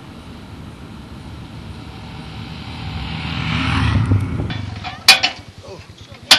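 A motorcycle riding up and passing close by, its engine growing steadily louder to a peak about four seconds in and then fading away. Near the end come two loud, sharp clacks.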